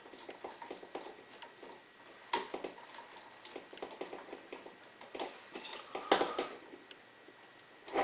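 Screwdriver tightening a brass terminal screw down on a wire on a light switch: a run of small clicks and scrapes, with a sharper click a little past two seconds in and another about six seconds in.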